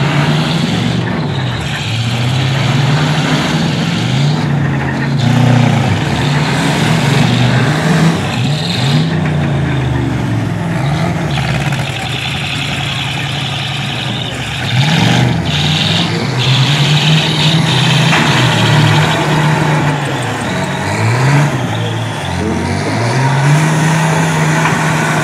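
Pickup truck engines in a demolition derby revving hard, their pitch rising and falling again and again as the trucks reverse and charge, with a few sharp bangs of the trucks colliding.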